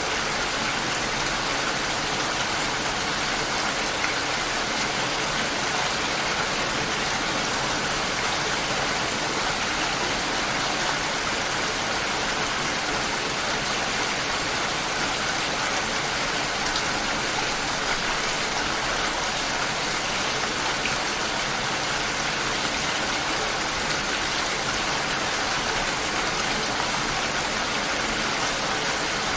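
Light rain falling steadily, an even hiss with no thunder.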